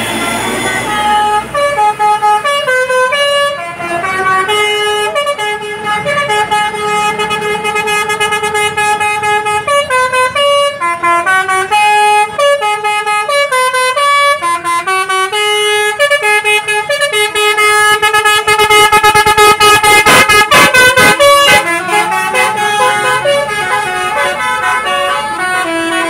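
Bus telolet horn, a basuri multi-tone musical horn, playing a melody of held notes that step up and down in pitch. For a few seconds past the middle it switches to a fast run of short, rapidly repeated blasts, the loudest part, then returns to held notes.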